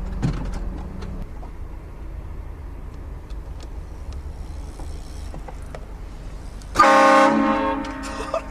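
Vehicle rumble, then about seven seconds in a single loud blast from a prank air horn mounted on the vehicle, sounding several tones at once and fading off over about a second.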